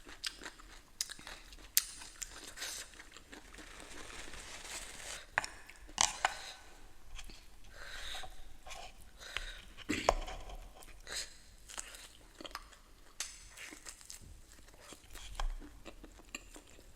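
Close-miked eating sounds: chewing and crunching, with many sharp mouth clicks scattered through.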